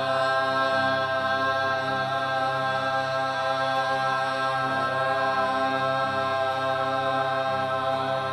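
Voices chanting a long, held 'Aaa', the mantra sound of A that activates the left channel, on a steady pitch. Short pitch slides come in about five seconds in and again near the end.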